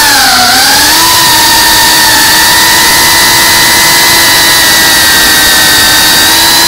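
FPV racing drone's brushless motors and propellers whining loudly, heard from the drone itself. The pitch dips briefly about half a second in, then holds steady.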